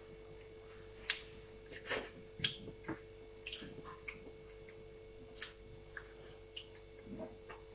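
Quiet eating sounds: a scattered handful of soft smacks and clicks from people eating a meal, over a faint steady hum.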